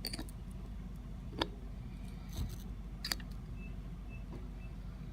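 A few light clicks and taps as multimeter test leads are put on the terminals of an AC unit's run capacitor for a capacitance test, over a steady low hum. Three faint short high beeps come near the end.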